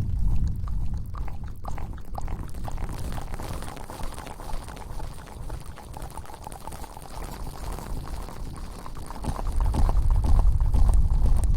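Close-miked wet rubbing and crackling, as in ASMR hair washing, with a deep rumble that swells at the start and again near the end.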